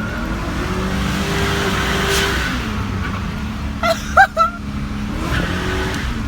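Chevrolet Silverado's 5.3 Vortec V8 revving up under throttle, then dropping back and running steadily, knocking from a rod knock. About four seconds in come a few short, loud squeals.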